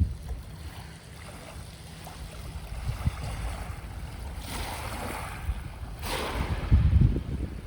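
Sea waves breaking and washing up the shore, two swells of surf about halfway through and near the end. Wind rumbles on the microphone throughout, loudest near the end.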